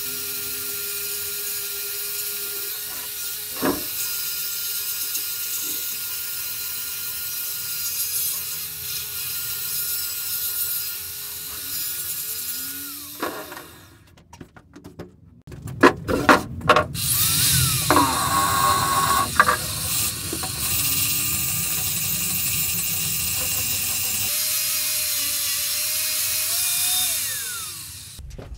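Angle grinder abrading the vise body: a steady high whine with hiss. It winds down about halfway, a few sharp knocks and clatters follow, then it spins up again, runs steadily, and winds down near the end.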